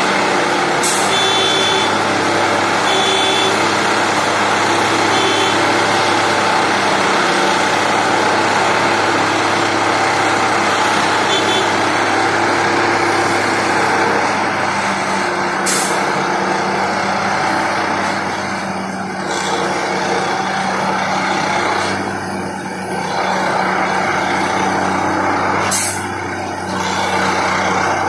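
Railway track tamping machine working: its diesel engine runs with a steady hum under a loud hiss of machinery. Short high beeps repeat in the first few seconds, and a few brief sharp bursts of noise come now and then.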